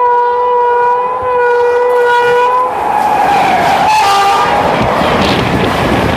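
A through train's horn sounds one long steady blast, then a second, higher note, followed by the loud rushing noise of the train passing at speed alongside the halted train.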